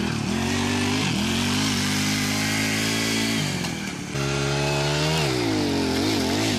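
Small vehicle's engine note running steadily, dropping away briefly about three and a half seconds in, then picking up again and revving up and down near the end.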